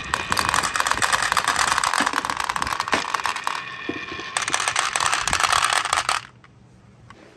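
Marbles rolling and clattering down wavy slide tracks and tumbling into the bed of a toy dump truck: a dense rattle of rapid clicks. It pauses briefly about three and a half seconds in, resumes, then stops about six seconds in.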